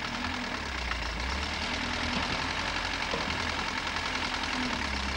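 Hydraulic excavator's diesel engine running steadily as its bucket digs into the forest floor.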